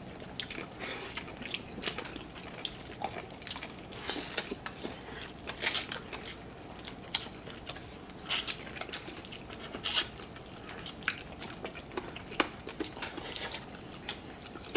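Close-up eating sounds of chicken curry with rice: chewing with irregular short clicks, a few louder ones spread through.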